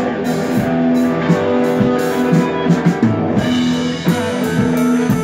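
Rock band playing live: electric guitar over a drum kit keeping a steady beat with regular cymbal strokes.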